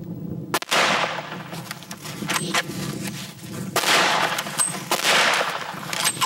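Several heavy rifle shots fired at an elephant at close range. The first comes sharply about half a second in, and more follow over the next few seconds, each trailing off in a long rush.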